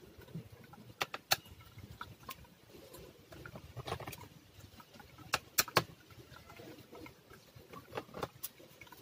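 A screwdriver working the small screws of a laptop's metal hard-disk caddy, giving scattered sharp clicks of tool on metal. Three clicks come close together about halfway through.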